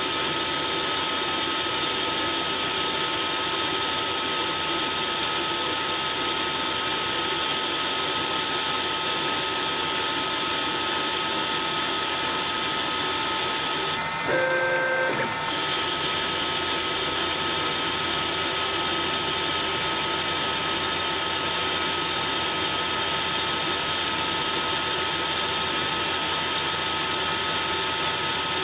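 CNC-converted Myford ML7 lathe running steadily, with a constant hiss and a steady whine from its motors. About halfway through, the whine briefly shifts to other pitches for about a second.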